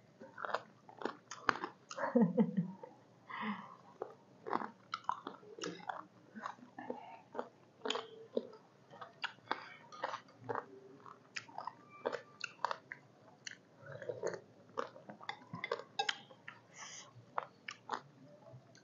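People chewing and eating chicken soup with lettuce, close-miked: many short mouth clicks and smacks scattered throughout.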